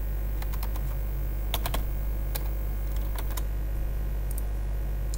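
Computer keyboard keys tapped in short, irregular clusters of keystrokes, over a steady low hum.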